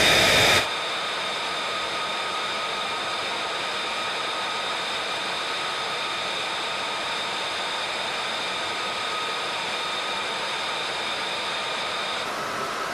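F-35's Pratt & Whitney F135 jet engine running at ground idle: a steady rushing hiss with a high whine over it. The level drops suddenly a little under a second in, and the highest whine tones fade out near the end.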